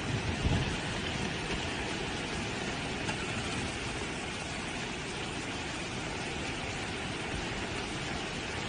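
Floodwater rushing steadily down a swollen river in torrent, a continuous even noise of churning water.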